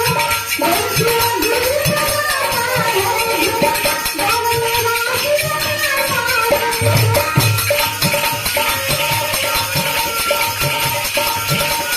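Bhajan music: a gliding melody over a steady, jangling hand-percussion rhythm.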